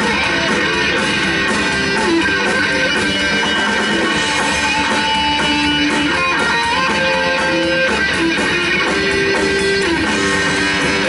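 Live instrumental rock from a guitar, bass and drums trio: the electric guitar plays held melodic notes that change every second or so over a steady drum beat and bass.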